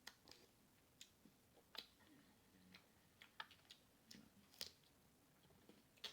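Faint, scattered wet mouth smacks and chewing clicks of a person eating seafood boil, at irregular intervals.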